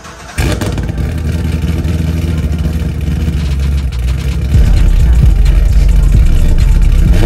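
2015 Chevrolet Camaro Z28's 7.0-litre V8 engine revving hard under acceleration. It cuts in abruptly and gets louder about halfway through.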